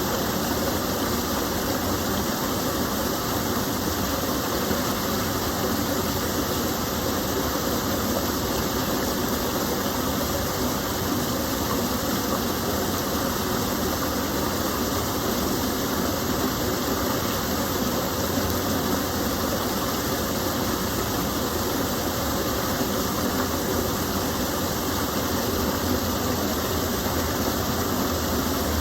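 Gentle stream of water pouring over a small fall, a steady, unbroken rush.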